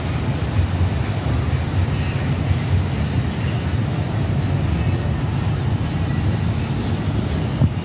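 A diesel locomotive rumbling steadily as it approaches slowly along the track, a continuous low drone with no horn.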